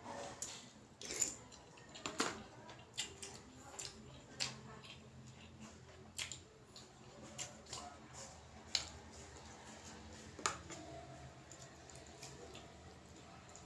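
Spoon clinking and scraping against a bowl in irregular, scattered clicks, with chewing and eating sounds between them.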